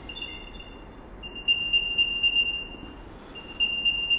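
Apple AirTag's built-in speaker playing its find-me sound: a high tone that starts faintly, comes in loud about a second and a half in, and runs in stretches of about a second and a half with a short break.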